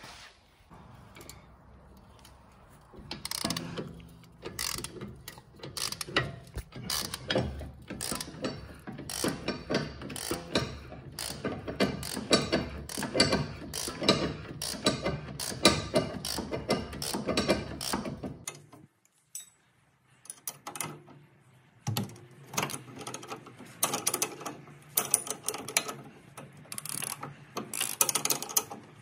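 Hand socket ratchet clicking in fast runs as a sway bar end link nut is tightened, with a break of a few seconds a little past the middle before the ratcheting starts again.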